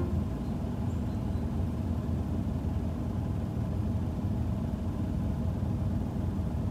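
Wind buffeting the microphone outdoors: a steady low rumble.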